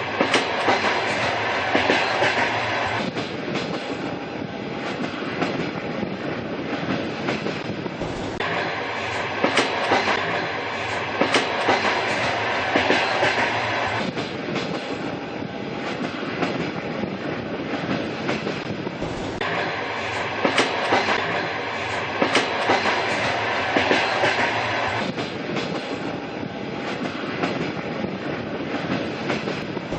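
An old train running along the rails, its wheels clicking in a steady clickety-clack over the rail joints under a continuous rumble. The sound swells and eases in a cycle that repeats about every eleven seconds.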